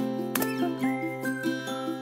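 Light, tinkling background music with a steady melody. About half a second in, one sharp shot from a Bostitch nailer driving a nail into the wood.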